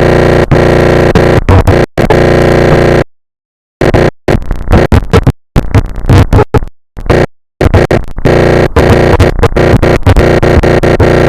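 Very loud, heavily distorted electronic noise with a steady droning tone, clipped at full volume. It cuts out abruptly several times, with the longest break just under a second, about three seconds in.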